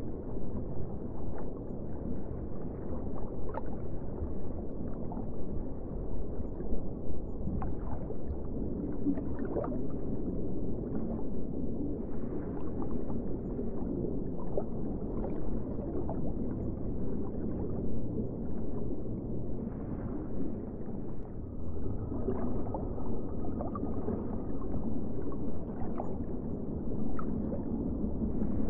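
Underwater ambience: a steady, muffled low rush of water with scattered bubbling and gurgling pops, and a faint held tone for a few seconds past the middle.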